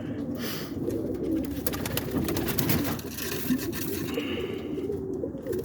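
Several domestic cock pigeons cooing together in a loft, a continuous low wavering murmur of overlapping coos, with scattered light clicks and rustles.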